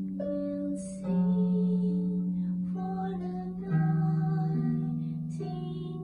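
Solo harp playing: deep bass notes plucked about a second in and again near four seconds, left ringing under a slow line of higher plucked notes.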